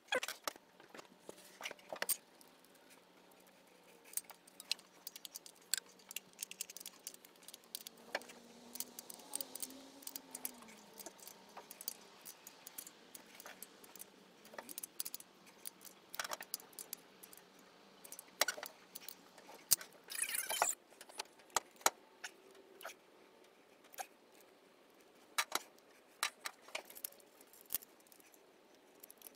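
Light, irregular metallic clicks, clinks and rattles of small hardware and hand tools being handled while a carburetor riser and carburetor are fitted onto a V8's intake manifold. A quicker run of clicks comes a little past two-thirds of the way through.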